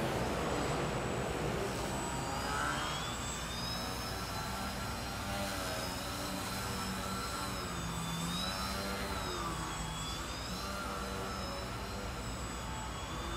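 Electric motor and propeller of a small foam RC aerobatic Yak plane whining, the pitch rising and falling as the throttle is worked through hovering and climbing manoeuvres.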